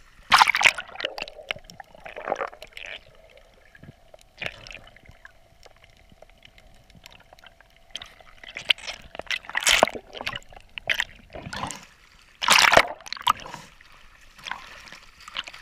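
Seawater splashing and sloshing around a handheld camera as a swimmer moves through the water, the camera dipping in and out of the surface. The splashes come at irregular moments, the loudest about half a second in and again about four-fifths of the way through.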